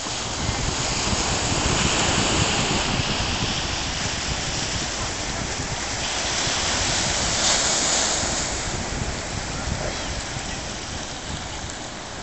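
Ocean surf breaking and washing up the beach, swelling and easing, with wind rumbling on the microphone.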